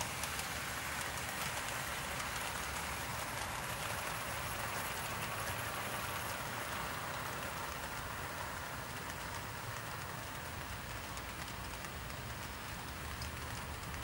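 Hornby Stanier 4P 2-6-4 tank engine model hauling coaches along OO gauge track: a steady whirr and hiss of the motor and wheels on the rails with a low rumble and faint ticking.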